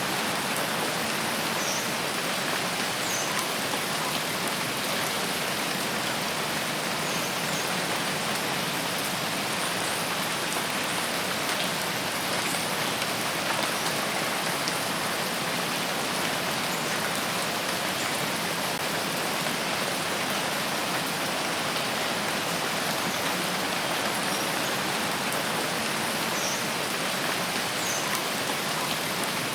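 Steady heavy rain falling on forest foliage, an even hiss with scattered drops.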